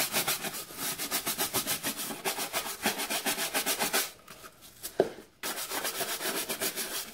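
Stiff scrubbing brush worked fast back and forth over the rubber sole and rim of a white Nike Air Force 1 trainer, wet with soapy baking-soda solution: a quick run of rasping strokes, several a second. The strokes pause about four seconds in, a single sharp knock follows, and then the scrubbing resumes.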